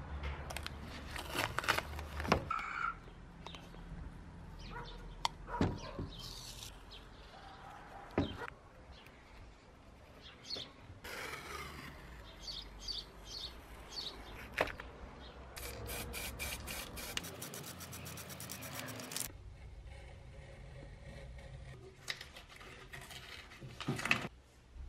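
Close handling sounds of masking tape being worked onto a wooden hatchet handle: scattered taps and rustles, with a rapid run of crackling clicks for about three seconds about two thirds of the way through as tape peels off the roll.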